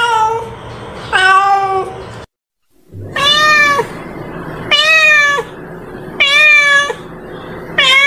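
Domestic cat meowing over and over: short, drawn meows, each well under a second, rising slightly and then falling at the end. It breaks off in a short dead silence about two seconds in, then meows four more times about a second and a half apart.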